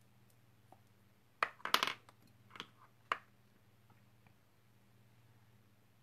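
Small make-up items, pencils and cases, clicking and clattering as they are picked up and put down on a table. There is a quick cluster of clatters about a second and a half in, then two sharper clicks about a second later, over a low steady hum.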